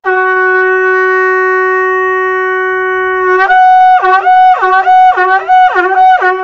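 Conch shell (shankh) blown: one long, loud held note. From about halfway it repeatedly jumps up an octave and back in quick warbles, then settles on the held note again.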